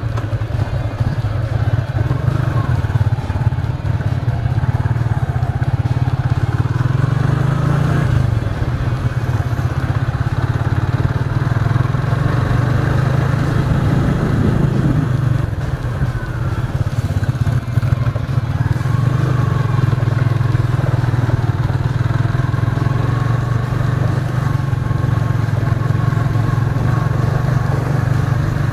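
Motorcycle engine running steadily while the bike is ridden along.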